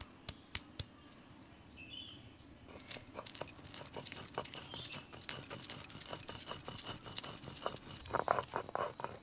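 Stone roller grinding soaked matar dal, ginger and green chillies on a grooved stone slab (shil-nora): stone knocking and scraping on stone, a few scattered knocks at first, then many quick strokes from about three seconds in.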